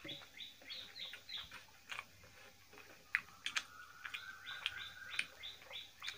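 A small animal chirping: short high chirps, about five a second, stopping for a couple of seconds midway and then starting again. A short steady tone sounds in the middle, and a few sharp clicks come through.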